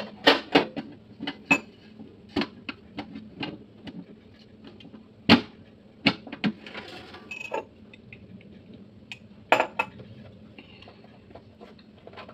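Handling sounds as the lid is fitted onto a mooncake box and the box is moved: irregular clicks and knocks, the loudest about five seconds in and another about nine and a half seconds in.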